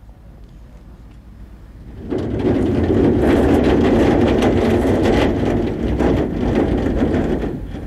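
Large sheet-metal sliding gate rolling shut on its wheels along a track. It is a loud rattling rumble that starts about two seconds in, lasts about five seconds and dies away near the end.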